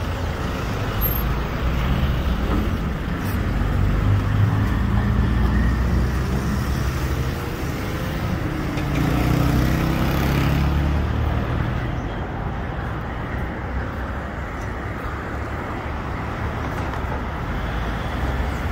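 City street traffic: cars passing close by on the road, a steady rush of engine and tyre noise that grows louder about four seconds in and again around nine to ten seconds in as vehicles go by.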